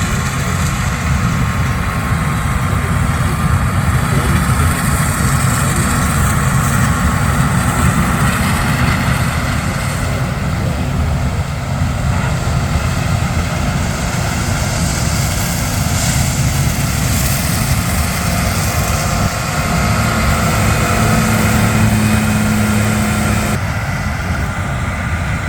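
Diesel engines of combines and tractors with grain carts working a corn harvest, running steadily, with a steady low hum that comes in for a few seconds near the end.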